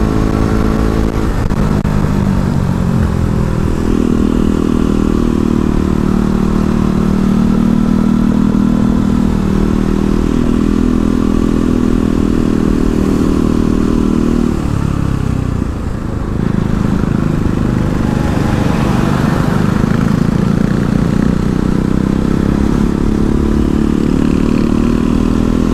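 KTM Duke single-cylinder motorcycle engine running under way at cruising speed, heard from the rider's seat with road and wind noise. About fifteen seconds in the revs drop sharply as the throttle is closed, then the engine pulls again, sounding rougher.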